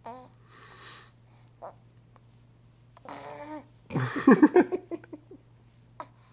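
Newborn baby waking from a nap: short squeaks, breathy sighs, and a loud strained grunt about four seconds in.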